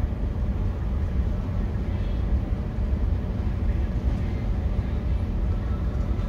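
Steady low rumble of an idling vehicle engine, heard from inside a car's cabin.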